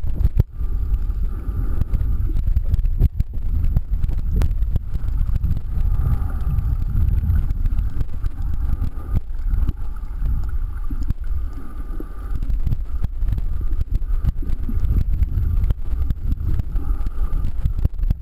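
Muffled low rumble of water moving against an underwater camera, with a few scattered faint clicks.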